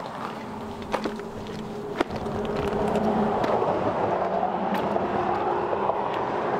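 Footsteps on loose volcanic rock and gravel, with a few sharp scuffs. From about two seconds in, a steady rushing noise with a low hum under it takes over and stays.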